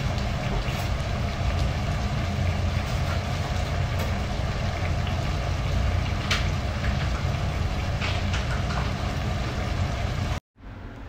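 Large pot of chicken feet at a rolling boil on the stove: a steady low rumble of bubbling, with a few small pops and clicks. The sound cuts off near the end.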